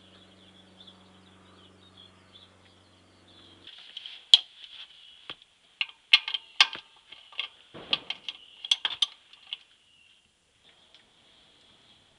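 Ratchet and socket loosening an oil sump drain plug: a run of sharp metallic clicks and knocks from about four seconds in, fading out near ten seconds, after a steady low hum in the first few seconds.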